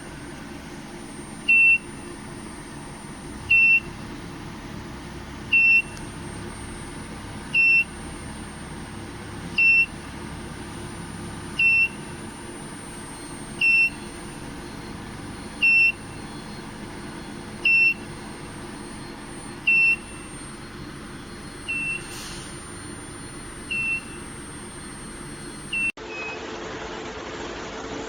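An electronic beeper sounds one short, high beep about every two seconds, the last few quieter. Underneath run a steady machine hum and a faint high whine. Near the end the sound changes abruptly to a louder, noisier hum.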